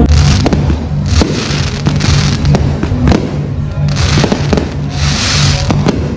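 Aerial fireworks going off: many sharp bangs and bursts of crackling hiss as the shells burst. Music with a steady, repeating bass beat plays underneath.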